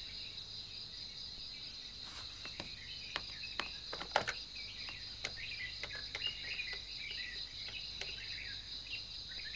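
A steady high insect drone with scattered bird chirps, over which come a dozen or so light clicks and knocks from about two seconds in as a corded desk telephone is handled, its handset lifted and its keys pressed.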